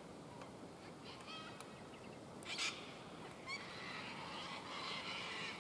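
A flock of white cockatoos calling. A few scattered calls come first, then a louder call about two and a half seconds in, and from a little past halfway a continuous chorus of overlapping calls.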